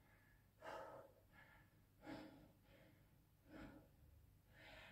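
Faint, hard breathing from a man catching his breath partway through a long high-rep squat set: a deep breath about every second and a half, with weaker breaths in between.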